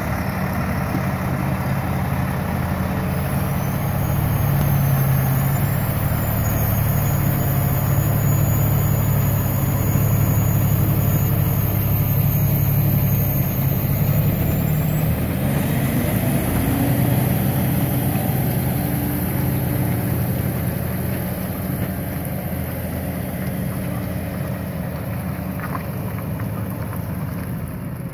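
Freightliner log truck's diesel engine running as the loaded truck pulls slowly past and away. The engine note climbs about halfway through as it picks up speed, then fades as the truck moves off.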